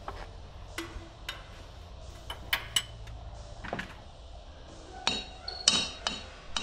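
Metal hand tools clinking and clanking in a run of sharp strikes, several with a short metallic ring. The loudest clanks come near the end.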